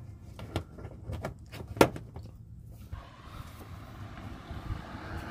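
Hands handling a stretch-fabric car bra and its fasteners: a few light clicks and one sharp snap about two seconds in. After about three seconds a steady outdoor rushing noise, like wind on the microphone, takes over and slowly grows.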